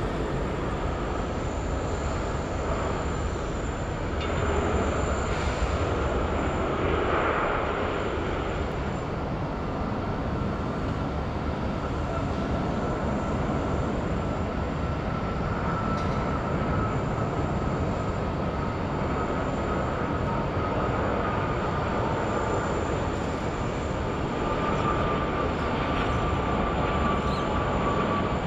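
Airliner jet engine noise: a steady rumble that swells for a few seconds early on as a Boeing 737-800 rolls on the runway. Then a Boeing 747-400 comes in on final approach, its engines carrying a faint whine that slowly falls in pitch as it nears touchdown.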